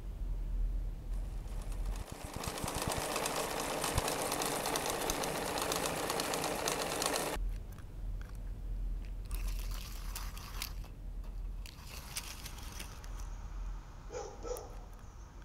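Sewing machine running in a dense, fast rattle for about six seconds, stopping abruptly about seven seconds in. Scattered light clicks and rustles follow.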